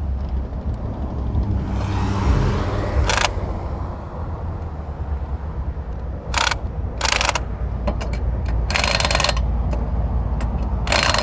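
Several short bursts of a pneumatic impact wrench on the truck's lug nuts, over a steady low engine rumble from an idling vehicle.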